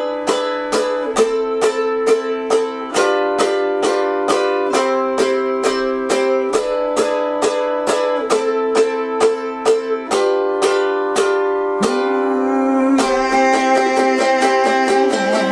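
Ukulele strummed in a steady rhythm through the ending chord loop C, E7, Am, G7, changing chord about every two seconds. Near the end one chord rings out briefly before the strumming picks up again.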